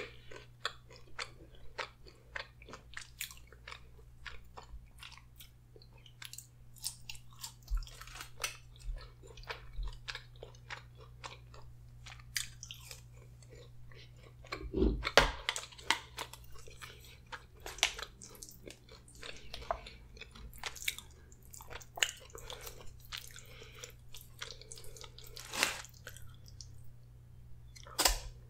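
Close-miked chewing of a mouthful of M&M cookie: soft crunches and wet mouth clicks, with a louder mouth sound about halfway through and a sharp knock near the end.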